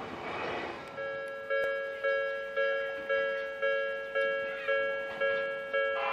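Railway level crossing warning bell ringing, a repeated pitched ding about twice a second, warning that a train is coming through. It starts about a second in, as the noise of a passing train dies away.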